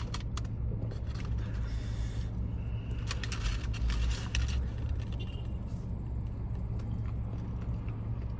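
Steady low hum of a parked car's cabin, with crackly rustling and clicks from handling food and its wrapper while eating, in two stretches about a second in and around three to four seconds in.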